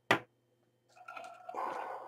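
A sharp click, then about a second of scraping and rattling as the metal body of an open Kiev 6S film camera is handled.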